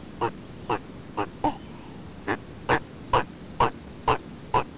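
Short animal calls repeated about twice a second, with a pause of nearly a second midway before the run resumes.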